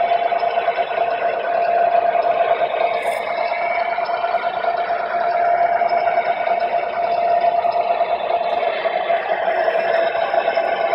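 O gauge model diesel switcher running slowly with its train: a steady drone with one strong held tone, the locomotive's engine sound and running gear along the track.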